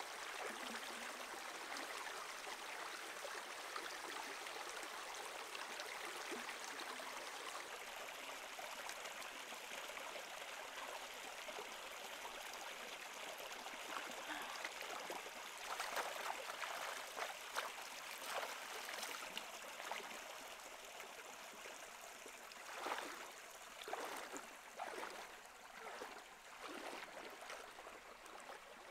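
Shallow stream water running over rocks, a steady rush, joined in the second half by a series of short splashes and swishes from someone wading through the water.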